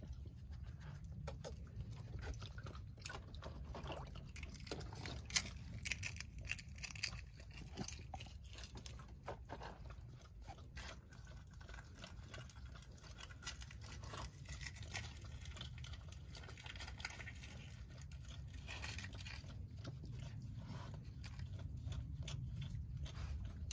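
Raccoon dabbling its front paws in a shallow plastic tub of water, with small splashes and scattered sharp clicks and taps, one louder tap about five seconds in, over a steady low rumble.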